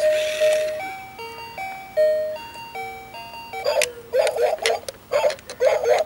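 Electronic toy melody of simple beeping tones, played by the speaker of a DeeRC remote-control ladybird toy, stepping from note to note. About three and a half seconds in, a choppier sound in several short bursts takes over.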